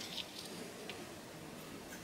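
Faint scratching of a fine-toothed metal comb drawn through hair against the scalp, with a few soft ticks.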